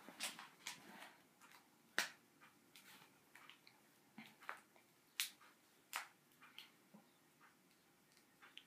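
Scattered sharp clicks and light taps of small hard parts being handled and pressed together, as the frame of a broken iPod is fitted back on. The clearest clicks come about two, five and six seconds in, with quiet gaps between.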